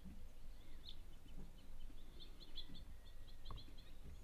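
Faint chirping of small songbirds: short high notes scattered throughout, with a quick run of them in the middle, over a low rumble.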